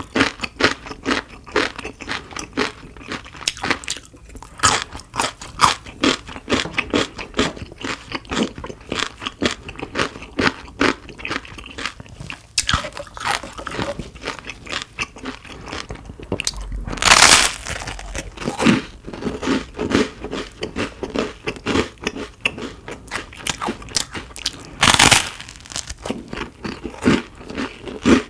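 Close-miked eating sounds: steady chewing with many quick crunchy clicks, and two louder crunching bites, one just past halfway and one near the end.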